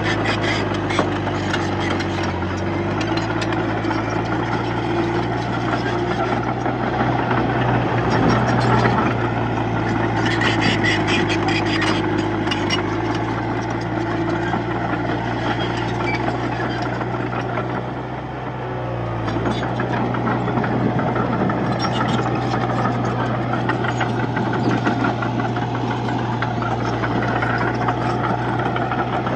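Komatsu D31-P bulldozer's diesel engine running under load while pushing soil, its pitch sagging and recovering a few times as the load changes, with spells of rattling.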